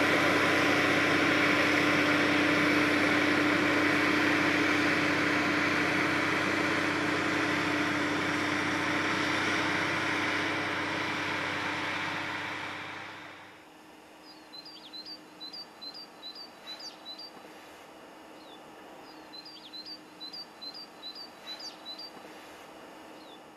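Rotary snow blower running: steady engine hum with the rush of snow thrown from its chute, fading out about halfway through. Then quiet, with a small bird singing two runs of quick, high, repeated chirps.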